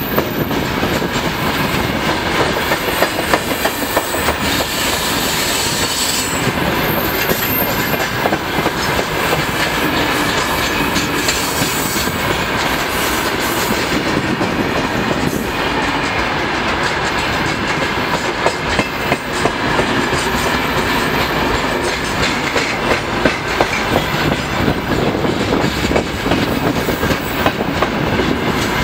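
Freight train of open-top gondola wagons rolling past close by at about 30 km/h: steady rumble of wheelsets with a dense clickety-clack of wheels over rail joints, and brief high-pitched wheel squeals now and then. The wagons are most likely running empty.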